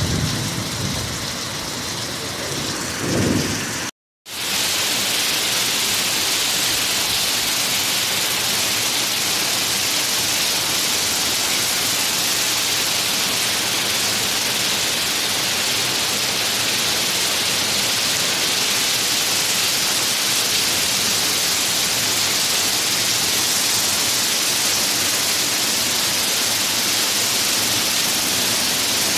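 Heavy rain pouring down in a storm: a steady, dense hiss of downpour, broken by a brief moment of silence about four seconds in.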